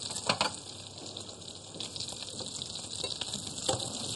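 Frying pan sizzling steadily with hot fat from pan-frying zander fillets, with a few light clicks of a utensil against the pan.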